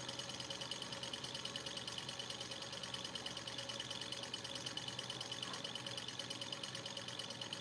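Small Robart Stirling hot-air engine running on the residual heat of its glass hot cylinder, its alcohol lamp taken away: a light, rapid, even ticking of its pistons and linkage.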